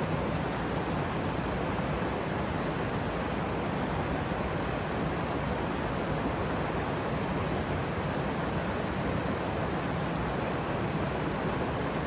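Waterfall: falling water making a steady, unbroken rush.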